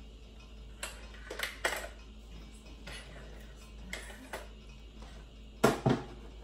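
Kitchen utensils and pans clinking and knocking now and then, about seven separate sharp clicks. The loudest is a pair of knocks near the end.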